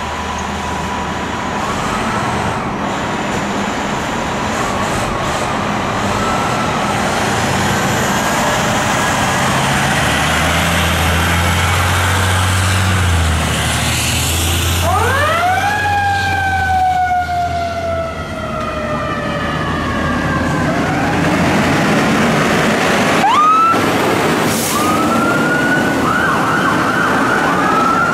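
Seagrave fire trucks leaving on an emergency response: diesel engines running and electronic sirens wailing and yelping. About fifteen seconds in, a mechanical siren winds up fast and then slowly coasts down, and it winds up again near the end.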